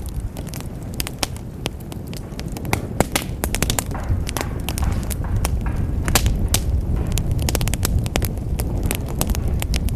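Wood fire burning in a fireplace, crackling with many irregular sharp pops over a low steady rumble of the flames.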